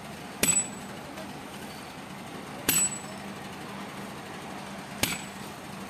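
Three sharp metallic clangs, evenly spaced about two and a half seconds apart, each with a brief high ring, like a tool striking metal. A steady low hum runs underneath.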